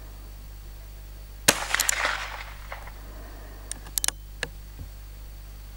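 A single .22 LR shot from a revolver-action carbine about a second and a half in, with a trailing echo. About two seconds later comes a short run of sharp metallic clicks as the hammer is thumbed back and the cylinder turns to the next round.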